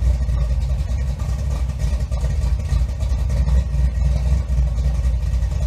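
Loud, steady low rumble, like a running engine or motor.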